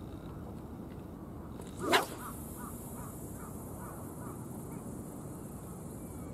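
A long fishing rod swishes through the air in an overhead cast about two seconds in, followed by a faint, steady high hiss of line peeling off the spinning reel for several seconds.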